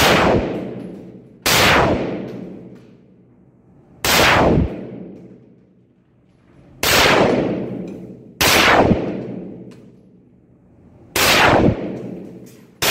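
Carbine firing single shots, about six, spaced a second and a half to three seconds apart. Each shot is loud and leaves an echo that dies away over about a second in the enclosed range.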